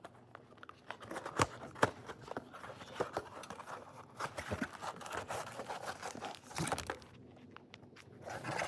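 A cardboard trading-card box being torn open and its packs taken out: irregular tearing, crinkling and tapping, with a couple of sharper snaps about one and a half and two seconds in.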